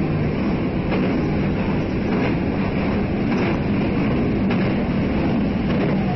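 Yokohama Municipal Subway Blue Line 3000V-type train running at steady speed, heard from inside the car: a continuous rumble of wheels on rail with a steady hum, and faint clicks about once a second.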